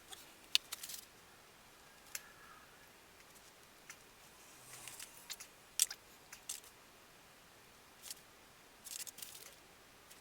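Scattered light clicks and brief scratchy crackles, every second or so, of small objects being handled.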